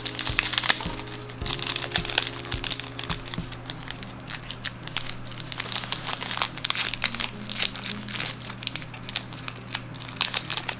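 Foil Pokémon Shining Legends booster pack wrapper crinkling as it is pulled open and handled, with a dense run of crackles, over steady background music.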